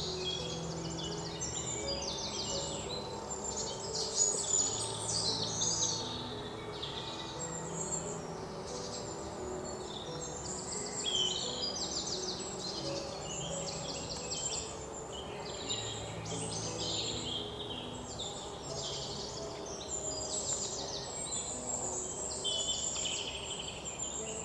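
A dense chorus of songbirds, many rapid trills and chirps overlapping without a break, over soft held low notes.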